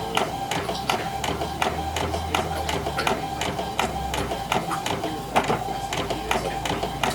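Inkjet printer printing a sheet: a steady whine with regular clicks about three a second from the print-head carriage and paper feed, with a low motor hum over the first few seconds.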